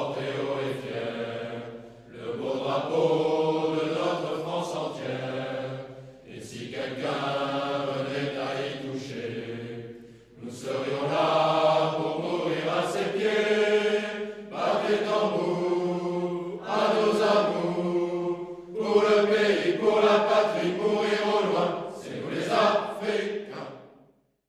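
A choir singing a slow chant in phrases of about four seconds, with short breaks between them; the singing stops shortly before the end.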